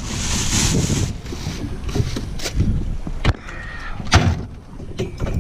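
Wind buffeting the microphone in gusts, with two sharp knocks in the second half.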